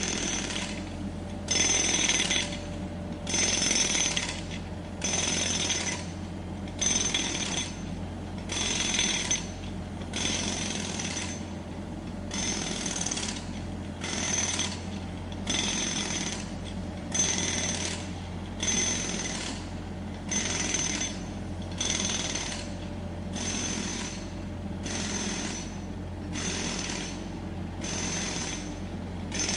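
Pneumatic jackhammer hammering in short bursts about once a second, each burst with a high ringing tone, over a steady low drone of road-works machinery.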